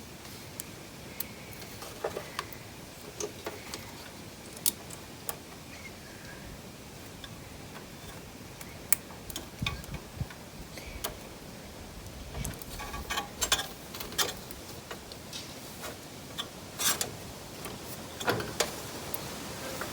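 Irregular small clicks and taps of metal connectors, wires and hand tools being handled while wiring a horn to a lawnmower battery, with a few dull knocks and the busiest clicking about two thirds of the way through.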